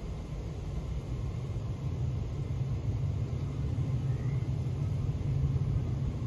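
Low engine rumble from a passing vehicle out of sight, steady and slowly growing louder.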